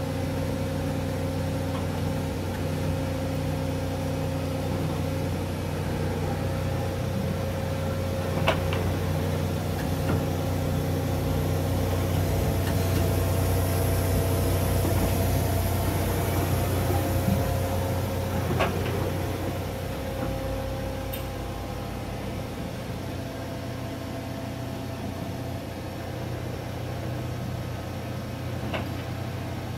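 Hwacheon CNC lathe running under power: a steady machine hum with a low drone, swelling a little in the middle. Three sharp clicks come about ten seconds apart.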